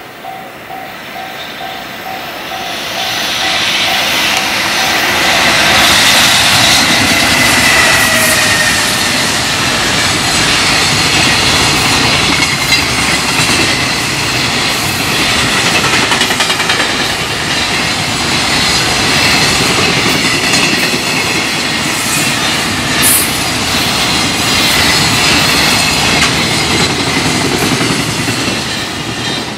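Container freight train passing close by at high speed, its wheels clattering and rumbling; the sound swells over the first few seconds as the locomotive arrives and stays loud as the wagons rush past. A level-crossing warning bell repeats steadily at the start, before the train drowns it out.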